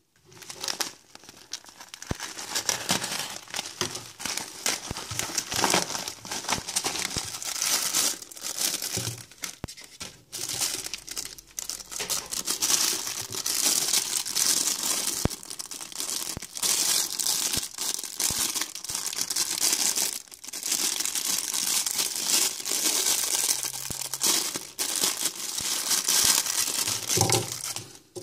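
Plastic packaging crinkling and tearing as a mailing envelope and a clear plastic bag are handled and pulled open, with short breaks about ten and twenty seconds in.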